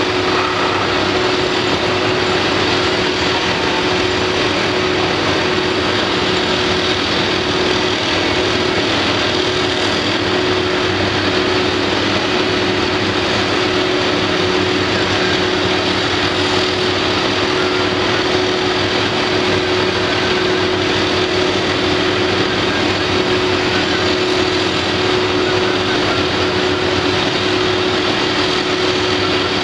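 Construction-site machinery engines running: a steady drone with a constant hum in it.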